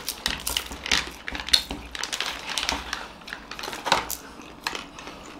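Plastic ice-cream wrapper crinkling as a chocobar is pulled out of it, with irregular small clicks and scrapes of eating at the table.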